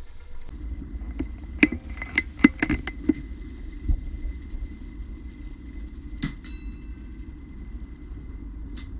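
Air Arms S410 air rifle being handled on the range: a quick series of clicks and knocks about two seconds in. About six seconds in comes a single sharp crack with a brief metallic ring, then one more click near the end.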